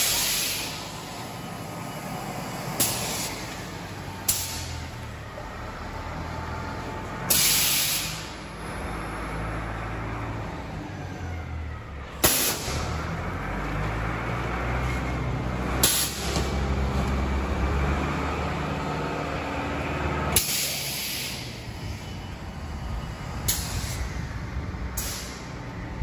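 Silage bagging machine running with a steady low hum, punctuated every few seconds by short, sharp hisses of compressed air being released as its pneumatic press cycles.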